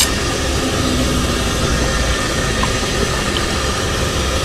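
Steady low rumble of street traffic, with a light clink of cutlery against a bowl at the very start.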